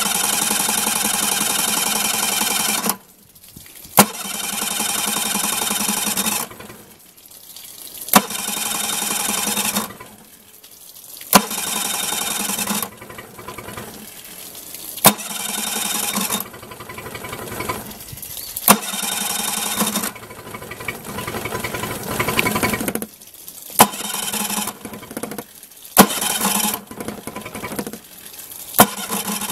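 Yamaha FT9.9 four-stroke outboard on electric start cranking over in about eight short bursts, each begun with a sharp clack, struggling to catch on a cold start. The hard start is put down to a faulty automatic choke, which the owner finds is getting no voltage to its electrothermal valve.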